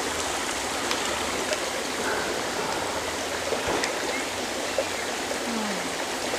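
Forest stream running over rocks: a steady rush of flowing water.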